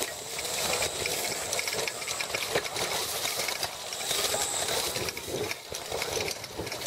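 Diamondback Recoil e-bike rattling and clattering as it is ridden fast over rough dirt trail, a constant run of small knocks from the bike shaking over the bumps under a steady hiss of tyre and wind noise.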